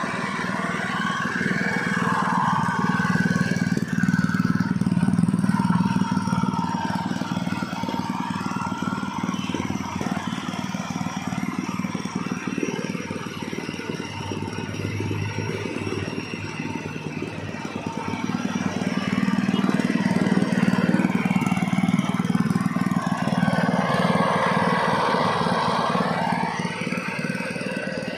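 Honda GX160 single-cylinder four-stroke engine on a compactor running on a test run after repair, its speed and loudness rising and falling twice, with a peak near the start and a longer one about two-thirds of the way through.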